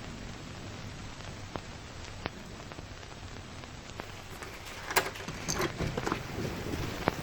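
Steady hiss of falling precipitation, like rain on a surface, with scattered sharp ticks. From about four and a half seconds in comes a denser run of louder crackles and clicks.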